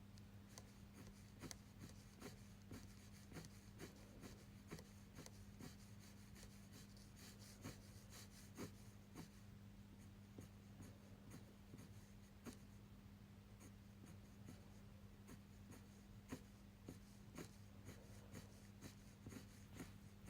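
Faint scratching and ticking of a 0.4 mm fineliner pen making short, irregular strokes on paper, over a low steady hum.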